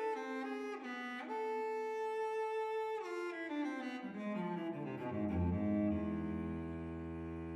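Solo cello playing slowly as background music: a long held note about a second in, then a line stepping down into the low register, ending on sustained low notes.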